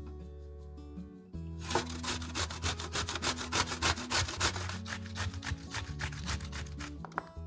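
Zucchini being grated on the large holes of a stainless steel box grater: quick rasping strokes, about four or five a second, that start a little over a second and a half in and stop just before the end.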